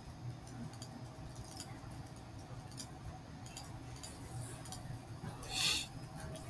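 Faint room noise with scattered light clicks and taps, and a short hiss about five and a half seconds in.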